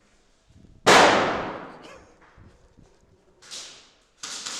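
A single loud bang about a second in, fading away over a second and a half in a reverberant room, typical of an airsoft grenade going off; two shorter, softer noises follow near the end.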